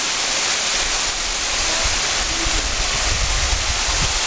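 Waterfall pouring down rock into a pool: a steady rushing hiss. From about a second in, an uneven low rumble comes and goes beneath it.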